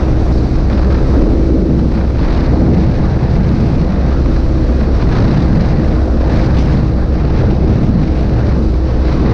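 Kawasaki Ninja 250 FI's parallel-twin engine running steadily at cruising speed, mixed with heavy wind noise buffeting the microphone.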